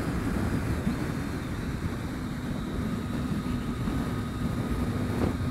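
Triumph Street Triple riding at steady motorway speed: wind rush over the microphone mixed with the steady drone of its three-cylinder engine.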